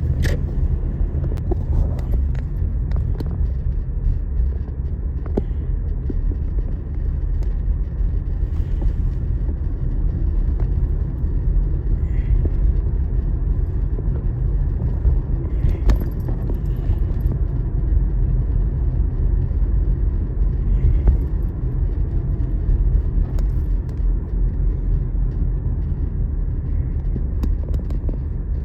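Steady low rumble of a car driving, heard from inside the vehicle, with a few faint rattles.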